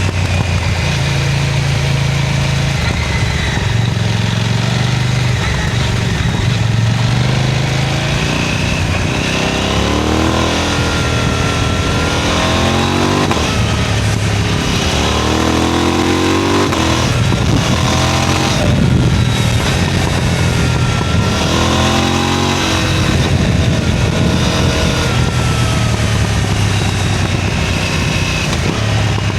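KTM 990 Duke twin-cylinder engine ridden at a fast pace, revving hard through the gears. Its pitch climbs and drops again and again as it accelerates and shifts.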